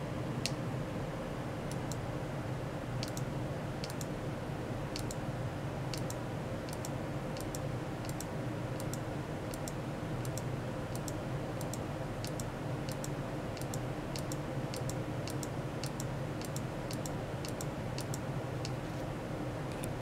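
Computer mouse buttons clicking about once a second, often in quick pairs, over a steady machine hum.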